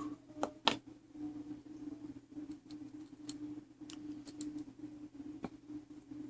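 Small, irregular metallic clicks and taps of tools and brass clock-movement parts being handled during reassembly, two of them sharper, about a second in and near the end, over a steady low electrical hum.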